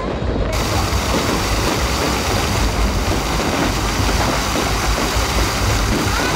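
Fireworks display going off as a dense barrage, with bursts and crackling stars merging into one continuous loud wash of noise in which no single bang stands out; the noise thickens about half a second in and holds steady.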